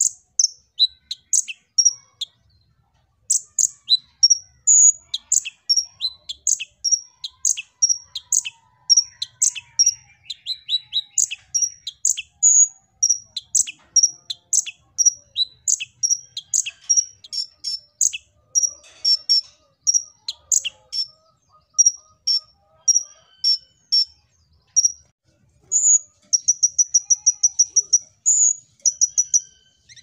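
Male Van Hasselt's sunbird (kolibri ninja) singing: a long series of sharp, high chirps, about two a second, with a short pause about two seconds in and a rapid trill near the end.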